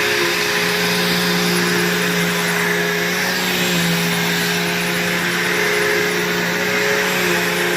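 Bissell PowerForce vacuum cleaner running steadily: its motor holds one even hum over a constant rush of air.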